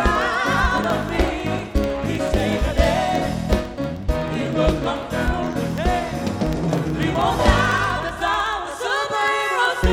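A live gospel band playing, with singers and backing voices over bass and drums; the low instruments drop out briefly near the end, then the full band comes back in.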